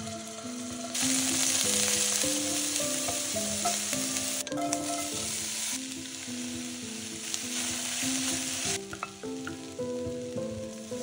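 Beef cubes searing and sliced onions frying in hot oil in a Dutch oven: a steady, dense sizzle, loudest from about a second in until near the end, then softer. A light background melody plays throughout.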